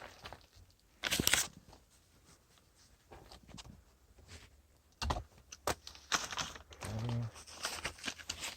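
Crinkling and rustling of flexible insulated air duct being handled and fitted. There is a brief loud tearing sound about a second in, and scattered clicks and rustles through the second half.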